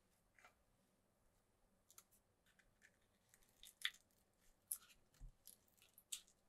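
Crisp fried cannoli shells and their aluminium-foil tubes crackling and crinkling as the shells are slid off the tubes, a scatter of small sharp crackles and clicks. There is one soft knock a little past the middle.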